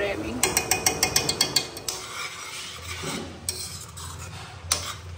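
Metal spoon stirring pasta in a thick white sauce in a stainless steel pan, scraping and clicking against the pan, with a quick run of clicks in the first couple of seconds and a few more near the end.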